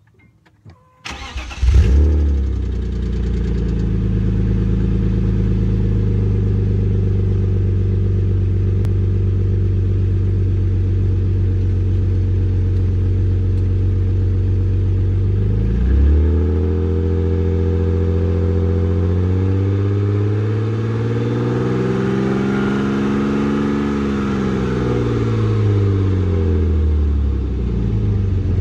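1996 BMW E36 M3's straight-six engine heard at its quad exhaust tips on a cold start. The starter cranks for about a second, the engine catches and settles into a steady idle. About halfway through the revs blip once, then later swell slowly up and back down.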